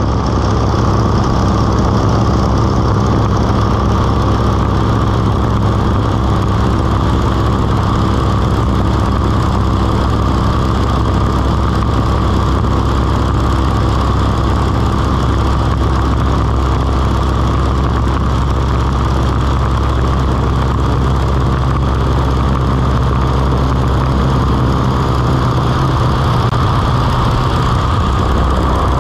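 Stearman biplane's radial engine running steadily in flight, with a constant rush of air over the open cockpit.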